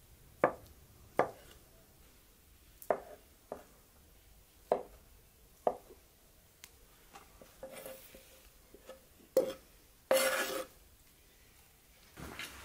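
Large kitchen knife cutting a block of soft white cheese on a wooden cutting board: a handful of sharp, irregularly spaced knocks as the blade hits the board, then a longer scraping sound about ten seconds in.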